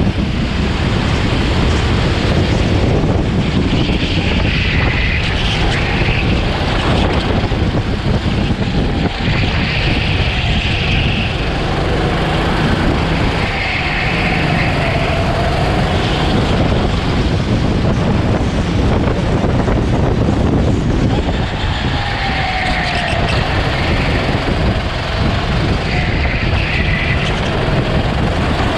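Go-kart engine running hard, its pitch falling and rising with the throttle through corners, under a heavy, steady wind rumble on the onboard microphone.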